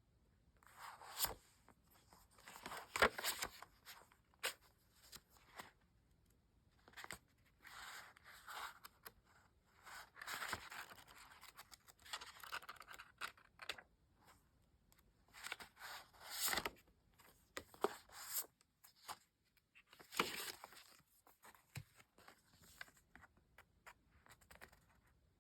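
Packaging being handled and torn open: irregular bursts of rustling and tearing, with sharp clicks in between.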